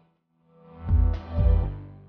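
Background music with a strong bass beat, which cuts out for about half a second at the start and then comes back in.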